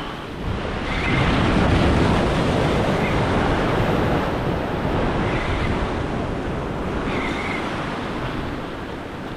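Ocean surf washing in and breaking against a rocky reef shoreline. The rush builds about a second in and slowly eases.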